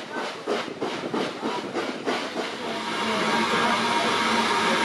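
Steam locomotive chuffing at about four beats a second, the rhythm cutting off about two seconds in, followed by a steady hiss of steam.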